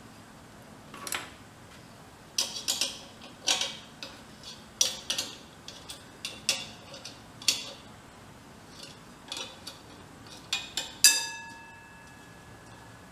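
Metal clinking and clanking as the lid and fittings of a 5-gallon portable air tank are handled and worked by hand: about a dozen irregular knocks, the loudest near the end ringing on for about a second.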